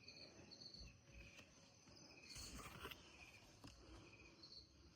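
Faint insects chirping in near silence, short high chirps repeating about once a second.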